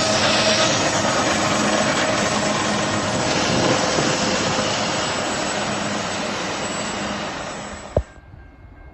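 Roar of a passing train: a steady rushing noise that slowly dies away, then cuts off suddenly with a sharp click near the end.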